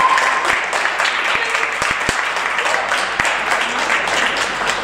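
A small group of people clapping their hands: many quick, uneven claps blending into steady applause.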